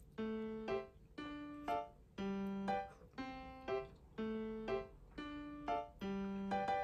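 Background piano music: a slow, repeating pattern of notes, one about every half second.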